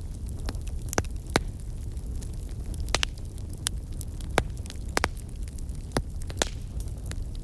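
Wood fire burning in a fireplace: a steady low rumble with sharp crackling pops every second or so.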